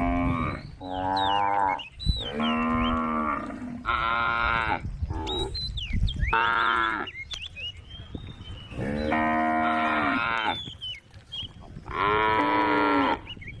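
Cows mooing again and again: about eight drawn-out calls, some short and some over a second long, with brief pauses between them.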